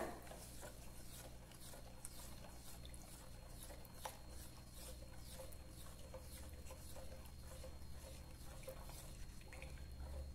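Silicone spatula stirring used cooking oil into a lye-and-water solution in a plastic basin: faint, repeated soft swishing and scraping strokes, the oil and lye being mixed for homemade soap.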